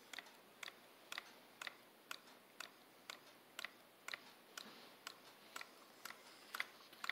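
Home-made solenoid engine running slowly, giving a sharp, even click about twice a second as the rocker closes the contact tab and the solenoid fires on each stroke.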